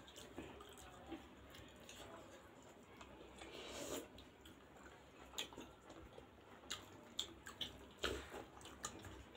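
Faint, close-up eating sounds of people chewing juicy pork momos: wet mouth clicks and smacks, with a louder slurp of achar sauce off a spoon about four seconds in.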